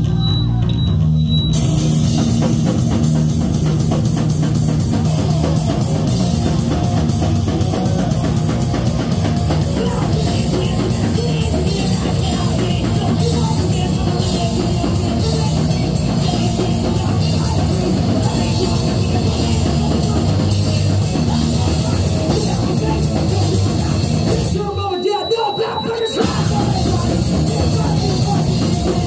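Live rock band playing loud: distorted electric guitar, electric bass and drum kit. The drums and cymbals crash in about a second and a half in, and near the end the drums and bass drop out for about a second before the full band comes back in.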